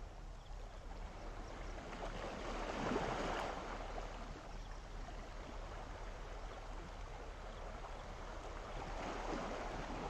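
Calm sea water washing gently against the shore, with a louder wash of a small wave about three seconds in and another near the end.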